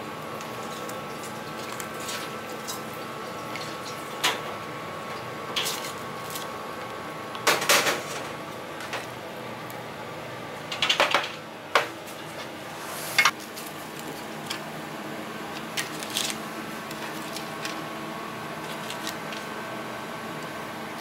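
Chopsticks and crockery knocking and clinking now and then, about eight short sharp sounds with the loudest clatter near the middle, over a steady kitchen hum.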